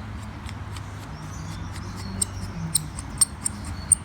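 Small, sharp clicks, about three to four a second, from the turning mechanism of a Bergeon 4266 crystal and bezel lifter as it is turned anti-clockwise to drive its jaws out; the clicks grow louder about halfway through.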